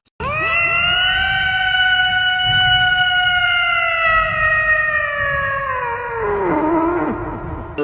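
An animal's long howl: one loud, high call that slowly sinks in pitch, then falls away and breaks up near the end.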